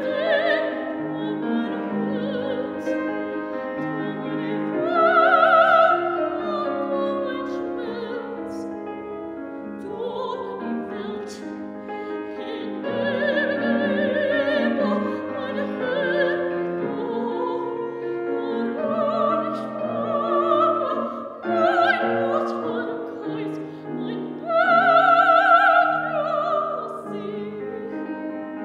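A woman's voice singing in classical operatic style with a wide vibrato, accompanied by a grand piano. Her loudest high held notes come about five seconds in and again near the end.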